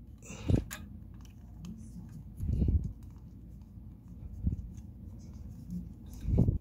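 Screwdriver turning a small screw into the metal mounting bracket of a Cooler Master Hyper 212 CPU heatsink: light scraping and ticking of metal on metal, with a few short dull bumps from handling the cooler.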